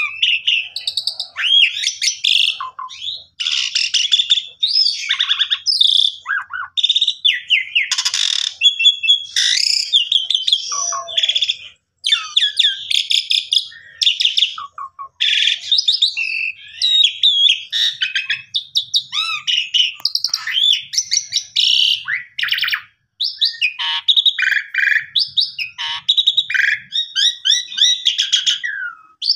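Javan pied starling (jalak suren) singing a long, varied song of whistles, slurred rising and falling notes and rapid chatter, with only short breaks.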